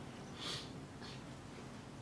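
Quiet room tone with a faint low hum, and one short soft breath from the man speaking about half a second in.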